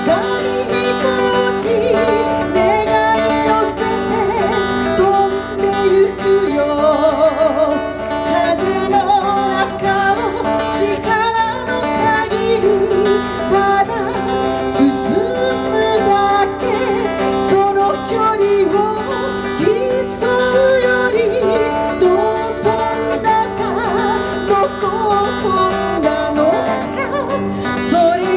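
A woman singing a song live into a microphone, accompanied by a steel-string acoustic guitar, amplified through a PA.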